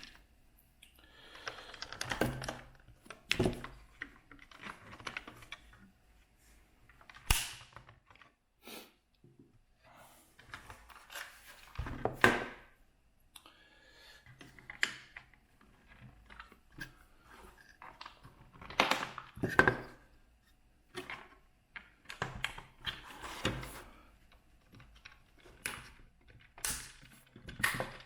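Hands working with tools and plastic parts: irregular clicks, knocks and rustling, with a few sharper knocks.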